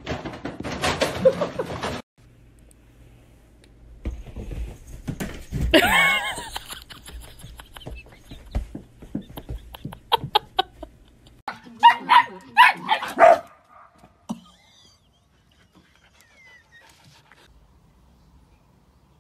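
A pet animal calling: one drawn-out call that bends up and down in pitch, then a quick run of four short, sharp calls, among scattered household knocks and rustles.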